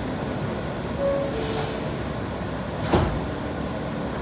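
New York City subway car's door-closing chime, two falling tones about a second in. Then the sliding doors shut with a single loud thud about three seconds in, over the steady hum of the stopped car.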